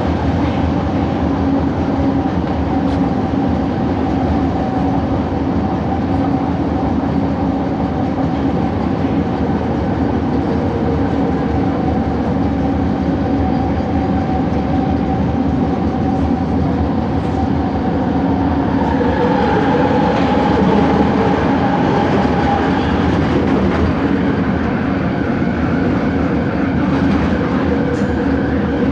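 Bombardier Innovia ART 200 train running at speed, heard from inside the car: a steady wheel rumble under the hum of its linear induction motors, a distorted motor noise. About two-thirds of the way through, the motor tones shift and the sound grows a little louder for a few seconds.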